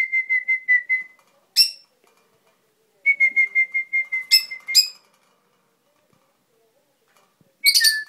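Pet lovebird singing in quick, shrill, chirping trills on one steady high pitch, cut by single sharp chirps. There are two runs of trills, the first at the start and the second about three seconds in, and another burst near the end.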